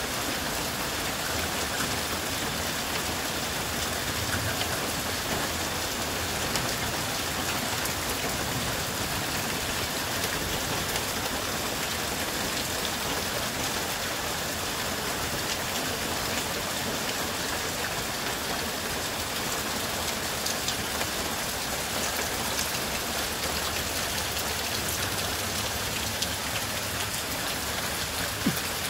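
Heavy rain falling steadily onto standing floodwater and wet leaf litter: an even, dense hiss of drops hitting the water, with a few sharper single-drop ticks near the end.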